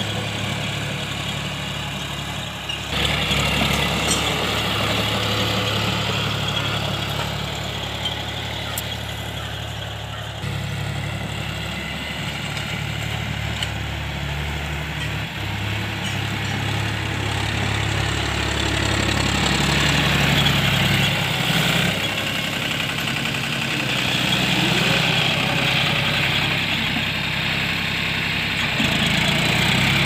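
John Deere 5045 tractor's three-cylinder diesel engine running steadily while it pulls a tine cultivator through the soil. Its note shifts abruptly a few times.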